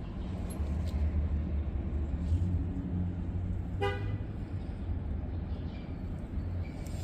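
A single short car horn toot about four seconds in, over a steady low rumble.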